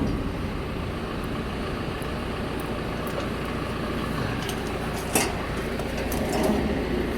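A vehicle engine idling steadily, with a few faint clicks and a short knock about five seconds in.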